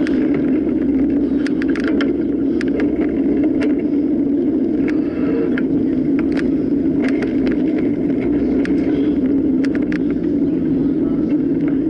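Mountain bike being ridden over rough ground: a steady rushing noise with irregular sharp rattles and clicks from bumps.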